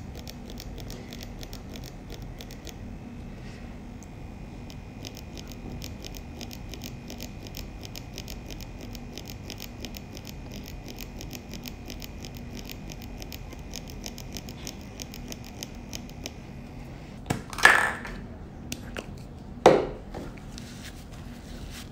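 YD Blink Pro X24 permanent-makeup pen running at 4 volts, a steady high whine with fast, even ticking as the needle shades pigment into practice skin; it stops about 17 seconds in. Then two short rubbing sounds as the skin is wiped.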